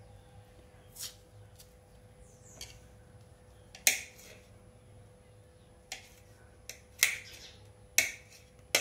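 Kitchen knife knocking against a plate as peeled orange segments are cut into small pieces: about eight short, sharp clicks at uneven intervals.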